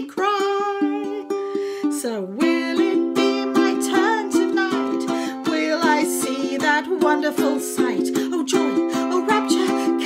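Ukulele strummed with a woman singing along.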